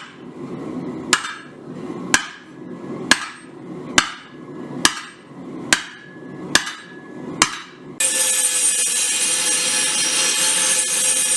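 Blacksmith's hammer striking hot steel on an anvil, eight ringing blows at about one a second. About 8 seconds in the hammering stops and a steady harsh hissing noise with a faint hum starts abruptly.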